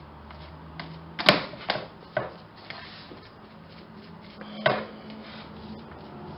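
Metal fork mashing cottage cheese in a plastic container, knocking and scraping against the tub's sides and bottom: a few sharp clicks about a second in and another near the end.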